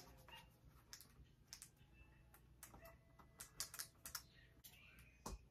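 Faint, irregular clicks and taps of a cardboard box and its paper mailer being handled and opened.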